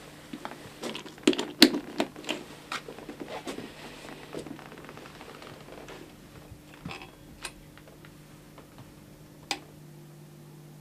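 A quick clatter of sharp clicks and knocks for several seconds, thinning out to a few single clicks, over a steady low hum.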